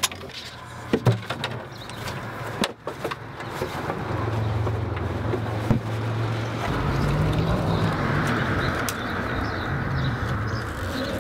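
A few sharp clicks and knocks of hand tools and wiring being worked, then a motor vehicle engine running steadily, growing a little louder and fuller about seven seconds in.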